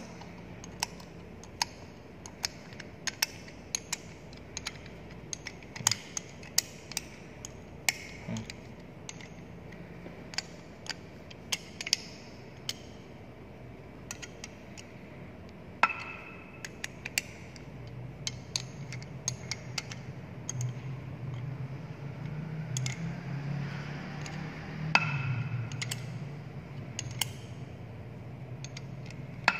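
Ring spanner clinking on the bolts of a centrifugal pump's cast-iron bearing housing as they are tightened in a crosswise pattern: irregular sharp metallic clicks, with a low rubbing of handling from a little past the middle to near the end.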